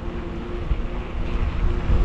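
Bicycle riding along a road: wind rumble on the microphone and rolling noise, growing louder near the end, with a faint steady hum underneath.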